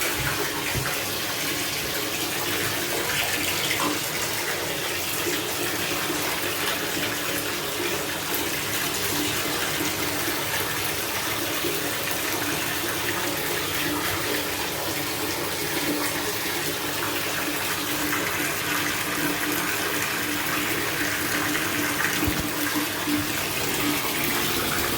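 Water running steadily from the tub spout into a bathtub as it fills, to test a newly fitted waste and overflow for leaks.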